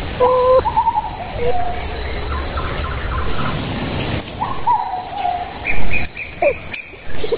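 Tropical forest ambience: a steady high insect drone with a short chirp about once a second, and birds giving whistled calls that step down in pitch, twice. A brief loud bump about six seconds in.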